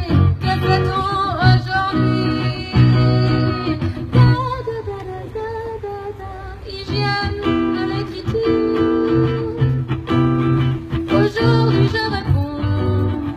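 A woman singing to her own electric guitar accompaniment, with a softer stretch in the middle before the guitar and voice come back fuller.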